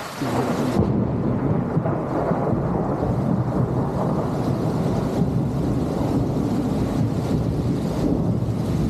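Heavy stormy rain with a loud low rumble that comes in suddenly just after the start and holds steady.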